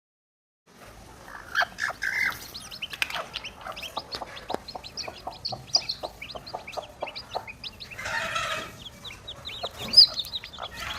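Newly hatched chicks peeping, a dense run of short, high chirps that starts after a brief silence. A few louder, lower calls come about a second and a half in, and there is a short rustle around eight seconds in.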